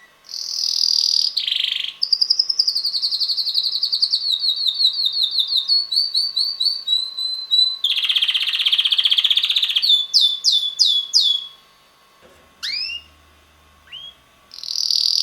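Young male red canary singing: fast trills, a harsh buzzy rattle about halfway through, then a run of quick downward-sweeping notes. A short pause with a couple of rising chirps follows before the trilling starts again near the end.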